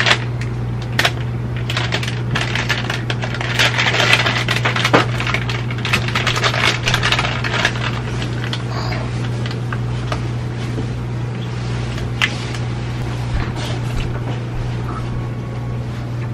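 Close handling noises: many small clicks, taps and crinkles, busiest in the first half, over a steady low hum.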